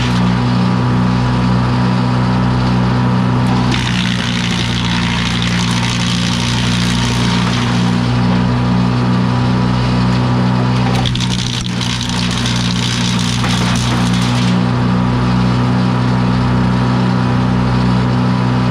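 Gas-engine wood chipper running steadily with its flywheel engaged: a constant engine hum with a quick pulsing throb. A rushing, hissing noise over it swells and drops back several times, every few seconds.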